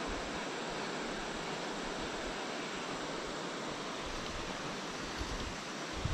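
Steady rushing of a river's current running over shallow rapids.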